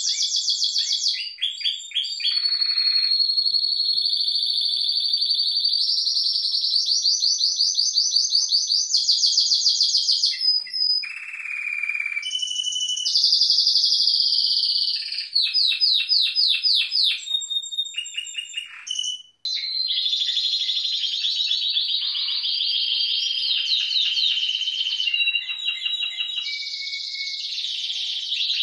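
Timbrado Español song canaries singing without pause: long rolling trills and runs of rapid repeated notes, changing phrase every second or two, with more than one bird singing at once at times. The song breaks off briefly about two-thirds of the way through.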